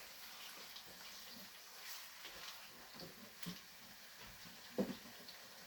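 Chicken pieces frying in oil with onion and garlic in a pan, being stirred: a faint sizzle with scattered small clicks of the spoon, and one louder short sound near the end.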